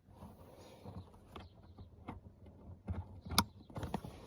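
Hands handling and fitting plastic trim parts, with several short clicks and knocks; the sharpest click comes about three and a half seconds in.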